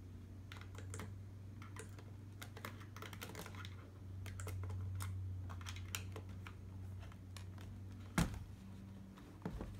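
Small irregular clicks and ticks of a screwdriver turning tiny screws into a laptop's metal screen bracket and hinge, with a louder knock about 8 seconds in and another near the end.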